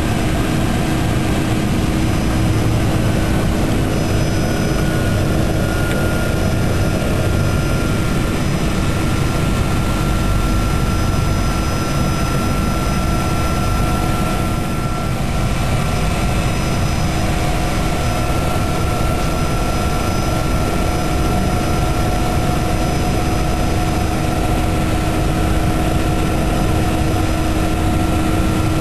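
De Havilland Canada DHC-2 Turbo Beaver's turboprop engine and propeller running steadily: an even drone with several constant high whining tones.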